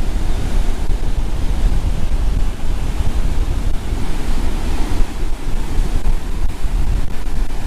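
Gusty storm wind buffeting the microphone with a heavy low rumble, over the steady rush of rough surf breaking on the beach.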